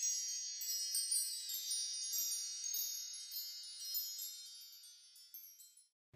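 Chime sound effect of many high, bell-like tinkling tones, fading away and gone about five seconds in.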